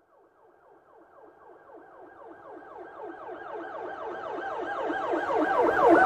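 Police siren in a fast up-and-down yelp, about three or four sweeps a second, coming from silence and growing steadily louder as the vehicle approaches, loudest near the end with rising road rumble beneath it.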